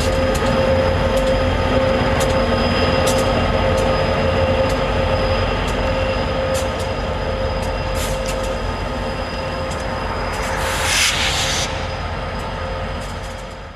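Loaded coal train rolling past: steel wheels running on the rails with a steady wheel squeal and scattered sharp clicks. A brief rush of hiss comes about eleven seconds in, and the sound fades out at the end.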